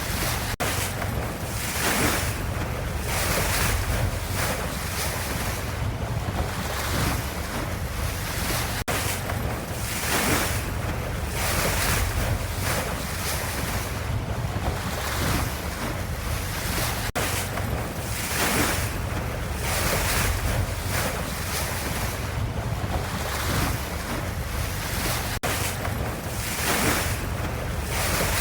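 Ocean water ambience: a continuous wash of surf-like noise over a deep rumble, swelling in surges every second or two. The same stretch seems to repeat about every eight seconds.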